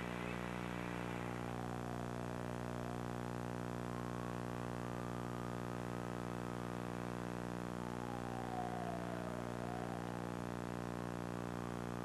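A steady buzzing hum made of many even tones, with faint whistle-like tones that slide down and back up twice, at about two to three seconds in and again near nine seconds.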